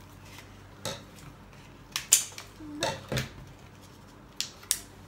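Small plastic packets and tools from a children's clay modelling kit being handled on a table: a handful of short, sharp clicks and crinkles, the loudest about two seconds in.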